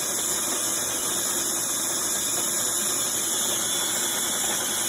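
Sboly electric conical burr coffee grinder running steadily, its burrs grinding coffee beans to a medium grind with an even, high-pitched whirring grind.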